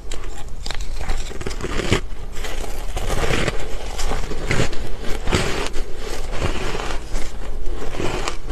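Close-miked biting and chewing of frozen ice blocks dusted with green powdery frost: an uneven run of crisp crunches and crackles, several a second.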